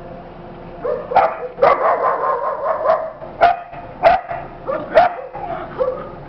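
Small dog yapping and yelping in a quick, excited run of barks while play-fighting with a tiger cub, starting about a second in, with three sharp loud yaps in the middle.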